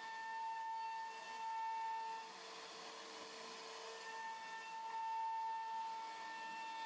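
CNC router spindle whining steadily as its bit carves a relief pattern into wood. The whine shifts to a lower pitch for a couple of seconds midway, then returns to its higher tone.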